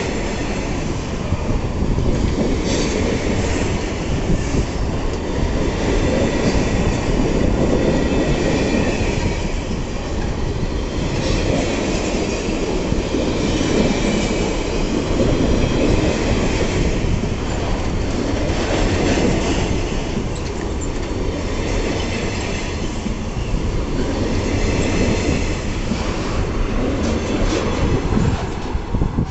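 Freight wagons of a pulp train rolling past at close range: steady rumble of steel wheels on rail, with wheel squeal and repeated clicking over the rail joints.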